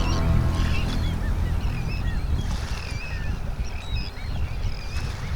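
Birds chirping: many short, curving calls repeating irregularly, over a rough low rumble.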